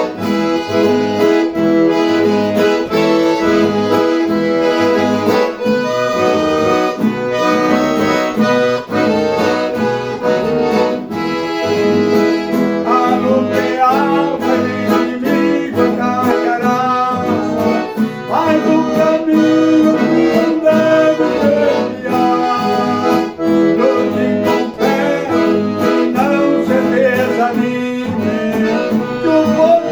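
Accordion playing a gospel praise melody in sustained chords, with a guitar accompanying.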